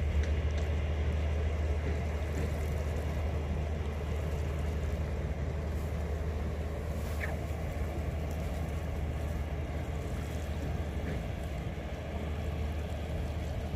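Steady low drone of a boat engine running in the harbour, with no change in pitch.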